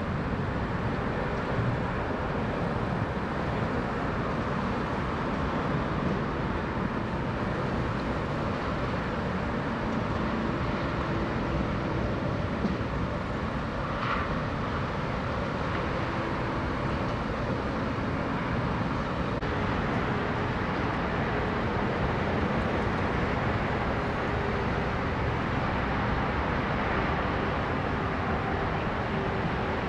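Steady noise of road traffic on a busy highway, with a brief high squeak about halfway through.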